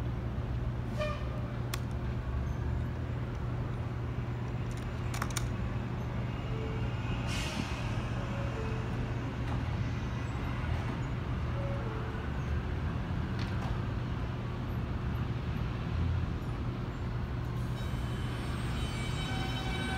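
R160A-1 subway train standing at the platform with a steady low hum, and a short hiss of air about a third of the way through. Near the end its propulsion starts a rising whine as the train begins to pull out.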